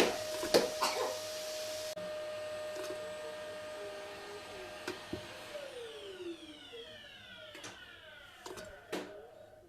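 Vacuum cleaner running steadily, then switched off about five and a half seconds in, its motor winding down in a falling whine. Light knocks of kitchenware sound over it.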